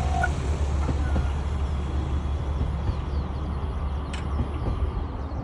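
A train passing a level crossing: a steady, low rumbling noise that slowly eases off.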